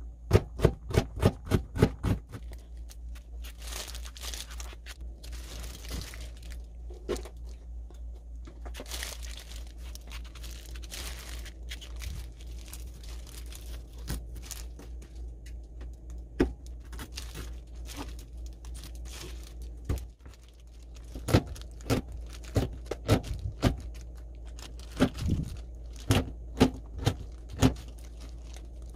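Chef's knife chopping on a plastic cutting board: quick, even strikes dicing carrot at the start, then a long stretch of softer rubbing and scraping as seeds are cleaned out of long green chili peppers by gloved hands, then chopping again from about twenty seconds in as the peppers are cut into small rings.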